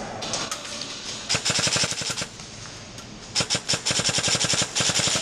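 Airsoft gun firing two rapid full-auto bursts: a short one about a second in and a longer one of nearly two seconds near the end.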